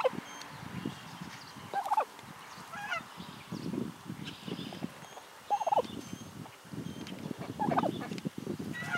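Domestic fowl calling repeatedly: about six short calls, one every second or two.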